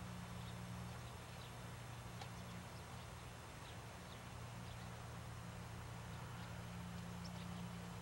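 Faint outdoor background: a steady low hum with a few faint, short high-pitched chirps scattered through it.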